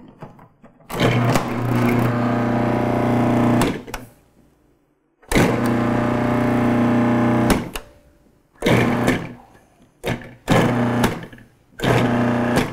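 Magimix 4200XL food processor's motor running with an empty bowl, switched on and off: two steady runs of a few seconds each, then three short pulses about a second and a half apart, each winding down when released.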